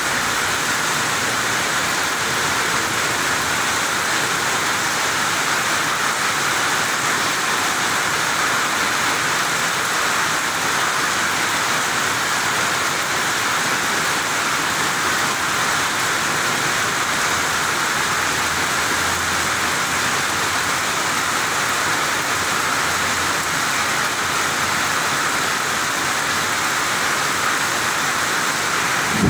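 Steady rain falling in a thunderstorm, an even hiss that does not change.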